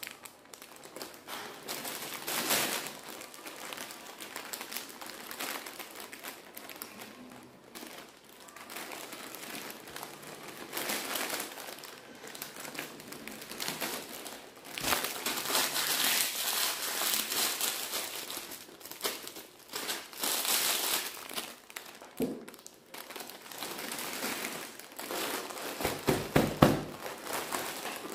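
Plastic instant-noodle wrappers crinkling and crumpling as they are handled, in irregular spurts, loudest about halfway through and again near the end.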